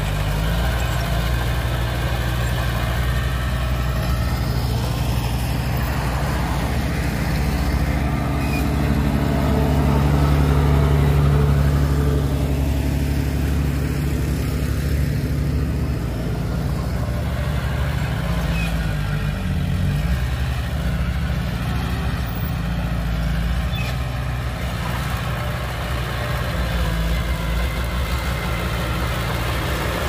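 Diesel engine of a small crawler bulldozer running under load as it pushes red earth. It swells louder for a couple of seconds about ten seconds in, then settles back.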